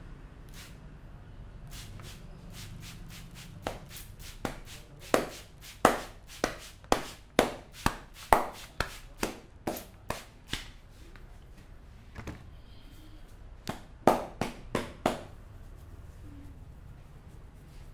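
Indian barber's head massage: a quick run of sharp hand slaps and cracks on the head, about two a second for some seven seconds. After a pause comes a shorter run of about five more.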